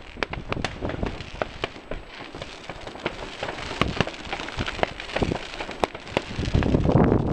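Many fireworks going off at once: sharp cracks and pops in quick, irregular succession over a crackling hiss. Near the end a louder low rushing noise swells up.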